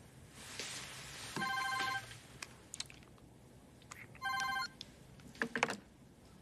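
Mobile phone ringtone for an incoming call, two short electronic rings about three seconds apart. Between the rings are soft rustles and a few clicks and knocks, the loudest a brief cluster near the end.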